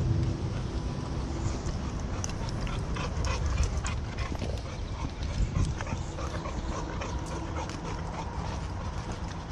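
Footsteps on a dirt and root trail with brush rustling, many small crunches and clicks over a steady low rumble of movement and wind on a body-worn microphone. A dog can be heard close by.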